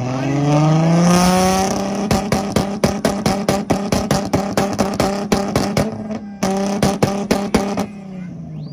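Nissan Silvia engine revving up to its two-step launch limiter and held there, the limiter cutting in with sharp bangs about four times a second for several seconds before it lets off near the end.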